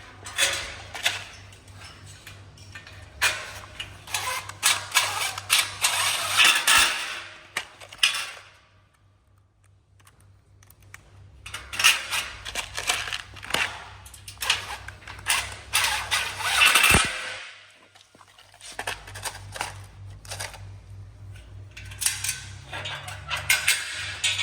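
Clattering and clicking of metal greenhouse parts, brackets and bolts being handled and fitted, in irregular runs over a steady low hum. The clatter stops for a few seconds near the middle, then resumes.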